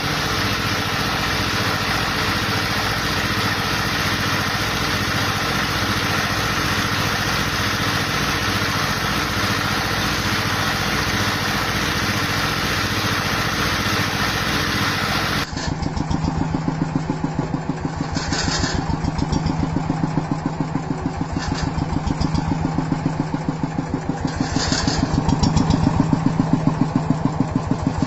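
Small single-cylinder diesel engine running. For about the first half it runs steadily; after a cut its speed swells and sags every few seconds instead of holding a steady idle, the hunting that the uploader says usually comes from a faulty injector nozzle or governor.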